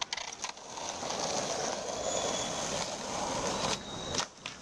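Skateboard wheels rolling over rough asphalt with a steady gritty rumble. A sharp crack near the end is the tail of the board snapping down to pop a flip trick.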